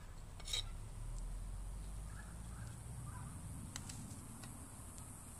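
Carving knife cutting into a white-oak walking stick by hand: a short scrape about half a second in, then a few light clicks of the blade, over a low steady rumble.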